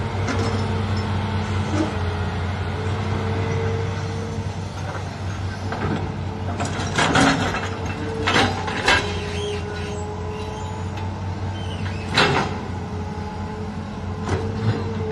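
Hitachi hydraulic crawler excavator's diesel engine running steadily under load while it digs, with a higher hydraulic tone that fades in the middle and returns near the end. Several sharp knocks, the loudest about halfway through and near the end, as the bucket strikes hard, rocky ground in the pit.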